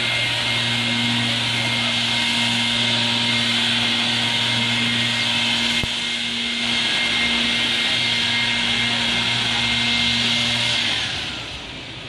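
A motor-driven machine running steadily: a loud whirring hiss over a low, even hum. It cuts off about eleven seconds in.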